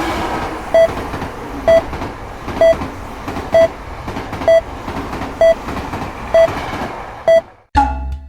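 Japanese railroad crossing warning bell sounding steadily, about one ding a second, over the noise of a passing train. Both cut off abruptly near the end.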